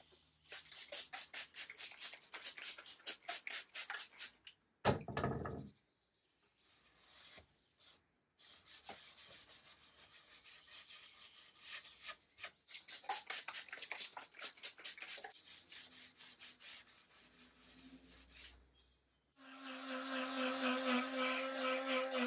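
A cloth scrubbing back and forth over a wet wooden panel in quick strokes, in several separate stretches. About three seconds before the end, a small cordless electric screwdriver starts and runs with a steady whine.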